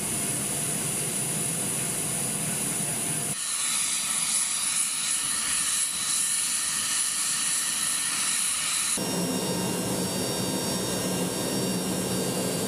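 C-130 Hercules turboprop engines running steadily, a loud even drone and hiss with a high whine. About three seconds in the sound abruptly turns thinner and higher, and near nine seconds in it turns fuller and lower again.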